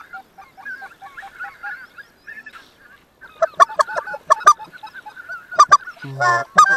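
A flock of greater white-fronted geese calling. The calls are faint and scattered at first, then loud and close from about three and a half seconds in, with one longer, deeper call just after six seconds.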